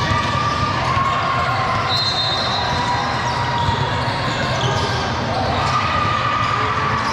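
Basketball gym crowd noise: many voices talking and calling out in a large hall, with a short high-pitched tone about two seconds in.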